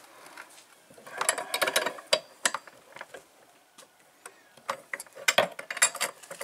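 Steel ring spanner clicking and rattling against a chainsaw's clutch as it is fitted and worked to loosen it. The clicks come in two quick clusters, about a second in and again near the end.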